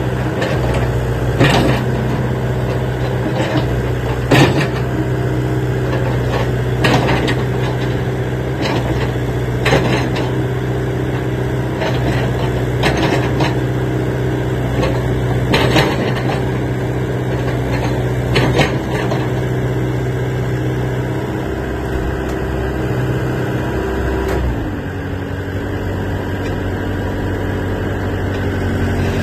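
Hitachi ZAXIS 70 excavator's diesel engine running steadily, with occasional sharp metallic knocks. Near the end the engine note drops to a lower speed.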